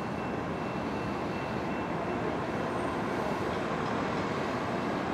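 Diesel freight locomotive approaching with a steady rumble, growing slightly louder.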